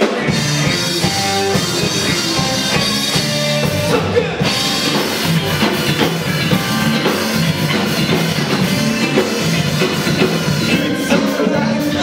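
Live rock band playing at full volume: drum kit beating steadily under an electric bass guitar and other instruments.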